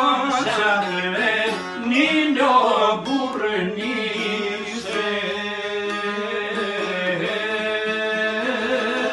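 Albanian folk song: a man singing an ornamented, wavering melody over instrumental accompaniment, holding one long note through the middle.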